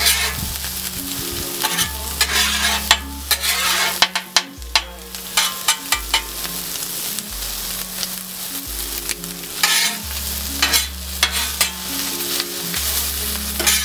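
Sausage slices and green peppers sizzling on a hot steel flat-top griddle, while two metal spatulas scrape and clack against the steel top in irregular strokes as the food is stirred and turned.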